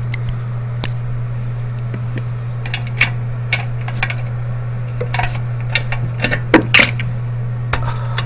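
Scattered sharp clicks and knocks of hands working a plastic fitting under a toilet tank, the loudest two coming close together about two-thirds of the way through, over a steady low hum.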